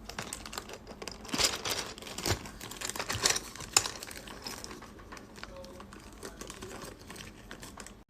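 Plastic packaging being crinkled and rustled by hand, with many sharp crackles, busiest in the first few seconds and then easing off before stopping abruptly.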